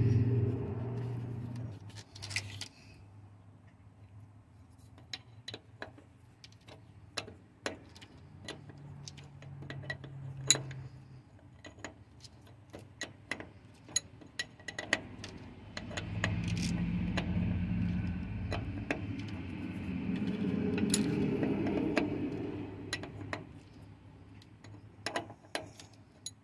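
Scattered small clicks and taps from hands and tools working a truck's A/C receiver-drier loose from its fitting and clamp. A vehicle engine runs in the background, fading over the first two seconds and coming back for several seconds past the middle.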